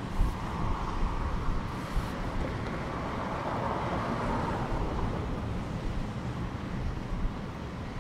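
Strong wind buffeting the microphone in an uneven low rumble, over the wash of rough sea surf that swells and fades in the middle.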